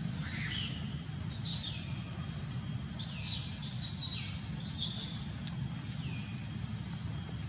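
High-pitched animal calls, each a quick falling whistle that levels off, repeating irregularly about once a second, over a steady low rumble.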